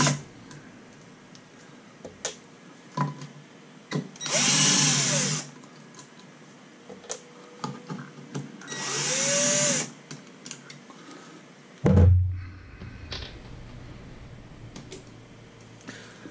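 A small handheld power tool's motor runs in three short bursts of about a second each, its pitch rising and falling as it spins up and down. Near the end a single loud thump, the loudest sound, stands out among light clicks of handling.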